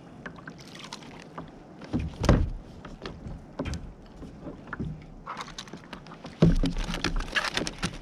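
Irregular knocks, thumps and clatter from a freshly caught snapper and fishing gear being handled aboard a fishing kayak, with a louder thump about two seconds in and a busier, louder run of knocks over the last second and a half.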